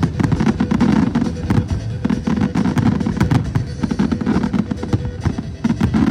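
Fireworks going off in a rapid, dense barrage of bangs and crackles, with music playing along.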